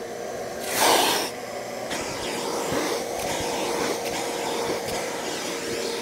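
Shop vac running with a steady whine while its wide plastic floor nozzle is drawn over a shampooed car carpet mat, sucking up the leftover carpet detergent and loosened dirt. A brief louder rush of air comes about a second in.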